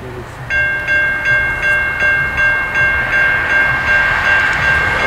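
Railroad grade-crossing warning bell starting about half a second in and ringing steadily with about three strikes a second: the crossing signals activating for an approaching train.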